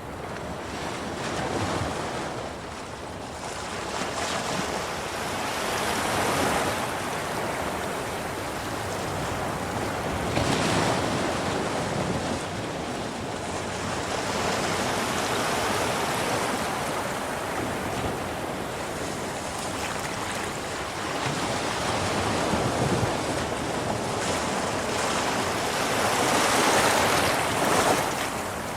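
Sea waves surging and washing over rocks on a rising tide: a constant rush of water that swells with each wave every four to six seconds, the loudest surge near the end.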